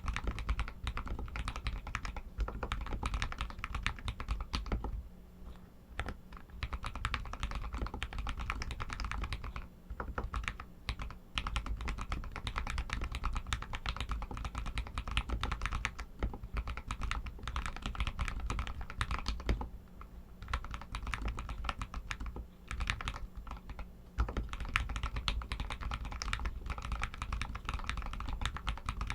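Royal Kludge RK61 mechanical keyboard with Outemu Red linear switches, typed on continuously: a dense, fast clatter of key presses with a few brief pauses.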